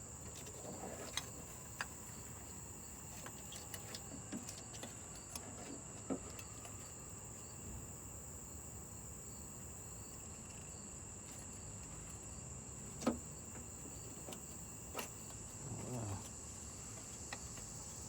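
Steady high insect trill like crickets, with a few short sharp clicks and taps scattered through it, the loudest about thirteen seconds in.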